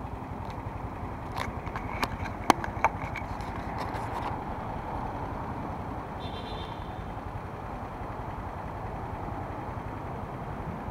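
Motor scooter engine running steadily as it moves off into traffic, under a cluster of sharp clicks and knocks in the first few seconds. A short high beep comes about six seconds in.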